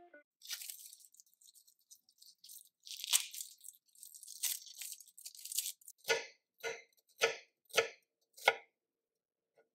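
Dry papery skin being peeled off a shallot, a crackling rustle. Then, after about six seconds, a knife slicing down through the shallot onto a wooden end-grain cutting board: about five even cuts.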